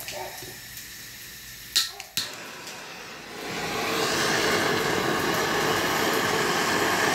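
Handheld butane torch being lit: two sharp clicks about two seconds in, then a steady hissing flame from a little after three seconds, played onto a wooden plank to char it for smoke.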